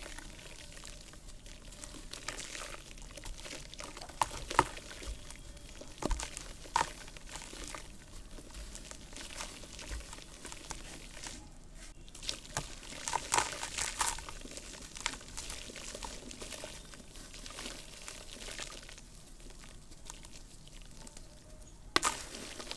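Clumps of soft, dry red dirt crumbling and breaking apart, with a steady fine crackle and irregular sharp crunches that come in louder clusters about four and six seconds in, around thirteen seconds in, and near the end.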